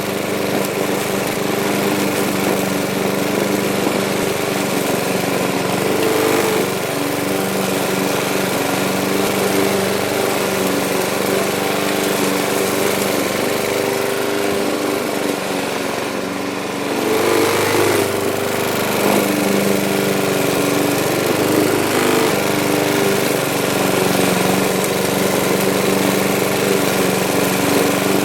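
Older petrol lawn mower running while cutting grass, a steady engine drone that dips and wavers in pitch around the middle, as under load, then picks back up.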